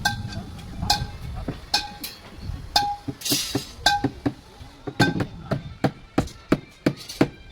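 Metal striking metal: a series of sharp clinks, each with a short ring. They come about once a second at first and speed up to about three a second in the last couple of seconds.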